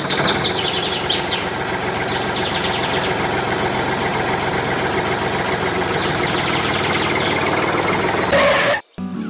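Diesel tractor engine running steadily with a fast, even beat, with birds chirping over it in the first second or so; the engine sound cuts off suddenly near the end.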